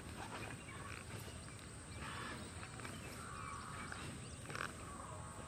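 Faint outdoor rural ambience with scattered short animal calls over a steady background hiss.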